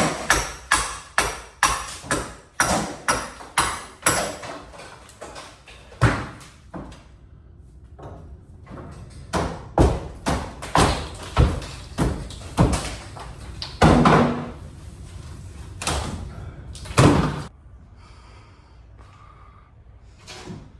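Repeated hard knocks and bangs of hand demolition work on a wood-slat ceiling: a quick run of strikes about two or three a second at first, then scattered, heavier single impacts.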